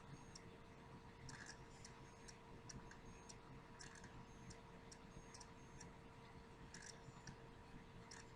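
Near silence: faint room hum with soft, irregularly spaced ticks.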